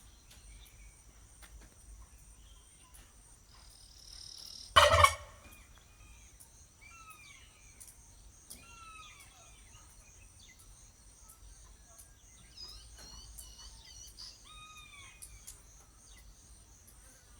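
A domestic turkey gobbles once, loud and short, about five seconds in. Short falling bird chirps come and go around it, over a steady high insect trill.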